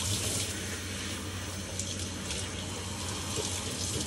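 Water running from a sink's pull-out spray head onto a wet dog, a steady hiss of spray with spattering.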